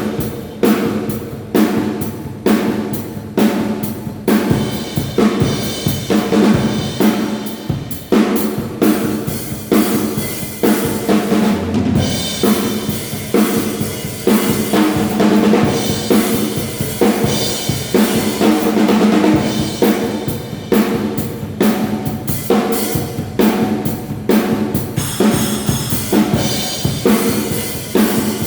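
Acoustic drum kit being played in a continuous beat during a sound check, with bass drum, snare and cymbal strokes repeating evenly.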